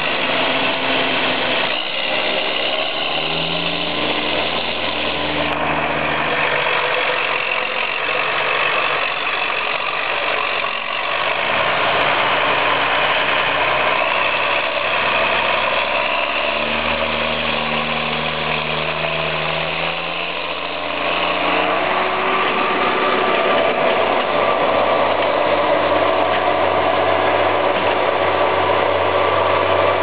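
John Deere 7810 tractor's six-cylinder turbo-diesel engine running steadily under load, with a high turbo whistle over the engine note. It gets a little louder about two-thirds of the way through.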